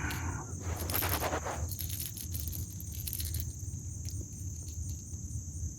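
Insects singing a steady, high-pitched trill. Close rustling and handling noise sounds in the first second and a half, followed by a few light clicks.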